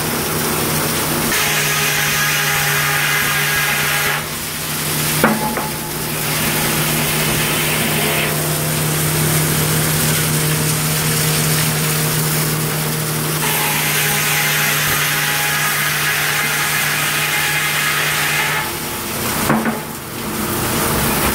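Sawmill's large circular head saw and carriage running, with a steady machinery hum. The blade's noise turns harsher twice, once for about three seconds and once for about five, as it cuts through the log. There are sharp knocks about five seconds in and again near the end.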